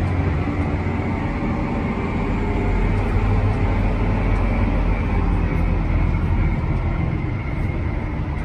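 John Deere 7R330 tractor under way at about 40 km/h, heard from inside the cab: its 9-litre six-cylinder diesel engine running steadily at around 1800 rpm, with steady driving noise.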